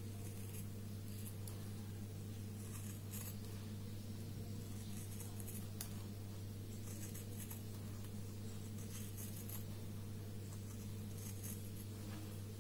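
Paper cutting: a cutter blade slicing through stiff brown paper in short scratchy strokes every second or two, with one sharp click about six seconds in. A steady low electrical hum runs underneath.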